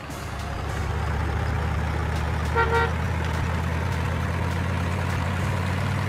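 Car engine sound effect running steadily, fading in over the first second, with a short double toot of a car horn about two and a half seconds in.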